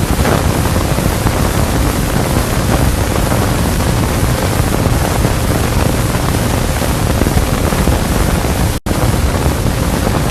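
Steady hiss with a low rumble from an old film soundtrack, with no distinct blast; it drops out briefly near the end.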